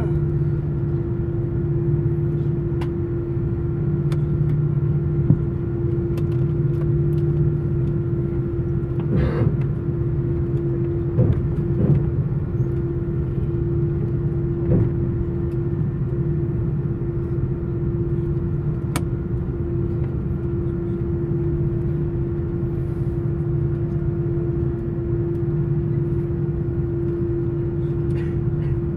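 Airbus A340 cabin noise at a window seat while the aircraft taxis: a steady drone of the engines at low thrust with a constant hum, and a few light knocks and bumps midway through.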